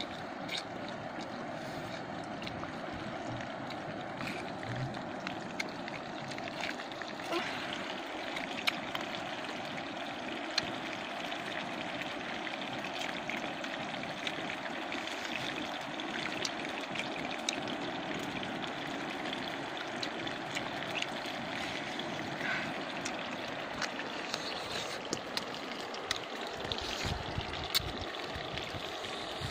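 Steady rushing outdoor noise, with scattered small clicks and smacks of someone chewing grilled pig ear.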